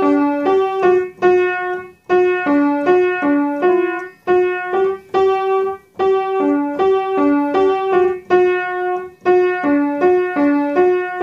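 A simple one-line melody played on a Ukraina upright piano. It is built from a handful of notes in short repeated phrases of about two seconds each, with brief breaks between them, and ends on a held note.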